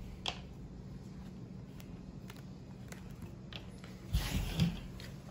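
Hands taking rubber bands off a bundled, damp tie-dyed cloth and unrolling it: faint clicks and rustles, then a louder rustle with low thumps about four seconds in.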